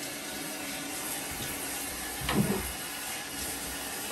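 Handheld shower head spraying steadily onto a wet Alaskan Malamute's coat in a bathtub, with one brief louder sound about halfway through.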